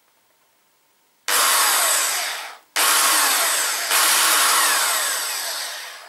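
Corded electric drill spinning a carbide tyre reamer through a motorcycle tyre at the puncture, reaming the hole out clean for a plug patch. It runs in two goes, a short one about a second in and a longer one that slows and dies away near the end.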